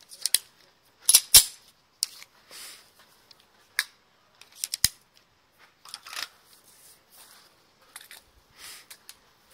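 Glock 34 pistol being handled and loaded on the make-ready command: a string of sharp plastic-and-metal clicks and clacks, the loudest about a second and a half in and another near five seconds, with soft rustling between.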